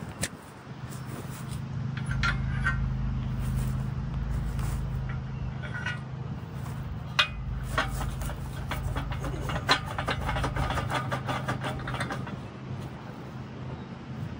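A steady low engine hum runs through, with light clicks and knocks from handling the aluminium rack rail, thickest in the second half.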